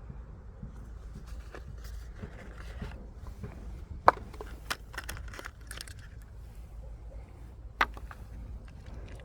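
Handling noises of a Kaido House NSX diecast model car and its plastic packaging: soft rustles and small clicks, with a sharp click about four seconds in and another near the end.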